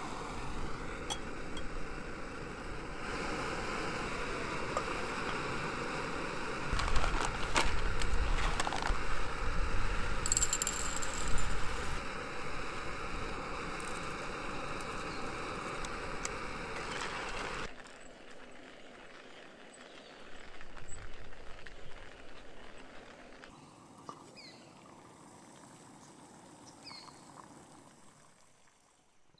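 Backpacking gas canister stove burning with a steady hiss, louder and rumbling for a few seconds in the first half. After about 18 seconds it is much quieter, with a few light metal clinks of cookware.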